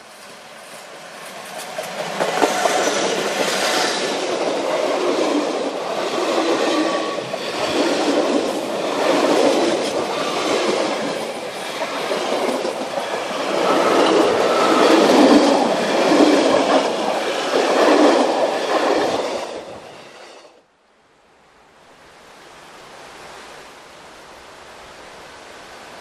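Narrow-gauge electric train passing close by, its wheels clattering over the rail joints in a regular beat. The sound cuts off abruptly about twenty seconds in, leaving a quieter, steady rumble of another train in the distance that grows slowly louder.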